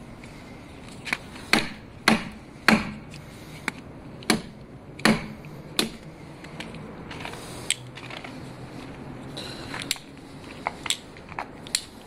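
CRKT Ikoma Seismic folding knife striking a wooden plank: about ten sharp, irregularly spaced knocks as the blade is driven into the wood to test its Deadbolt lock, followed by a few lighter clicks near the end.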